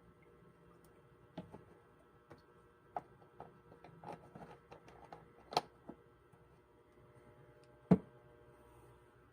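Scattered light clicks and knocks of small objects being handled over a faint steady hum, with one much louder knock near the end.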